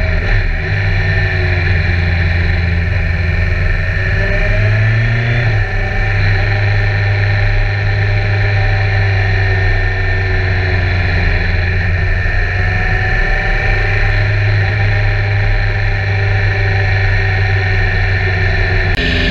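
BMW K1300R motorcycle's inline-four engine running at road speed, its pitch rising and falling gently with the throttle, with a short rise in revs about five seconds in.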